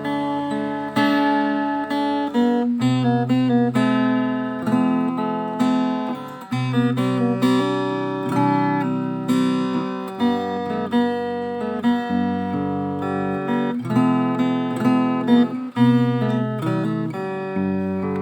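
Background music: acoustic guitar playing picked and strummed chords with a steady bass line.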